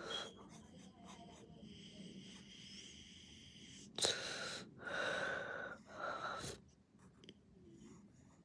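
A person breathing close by: three breaths through the nose, each with a faint whistle, about four to six and a half seconds in.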